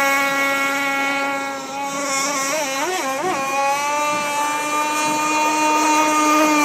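QD Pioneer 26 gas engine of an RC speedboat running at speed across the water, a steady high-pitched buzz. Its pitch wavers up and down a few times around three seconds in.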